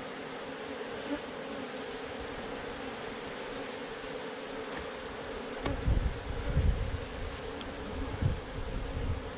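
A mass of Africanized honey bees buzzing in a steady drone. From a little past halfway, low rumbling gusts of wind buffet the microphone over the buzzing.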